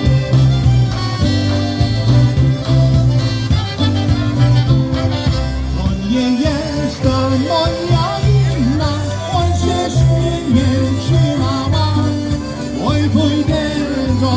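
Live polka band playing a Polish polka, a mostly instrumental stretch over a steady bass beat, with the melody becoming busier about halfway through.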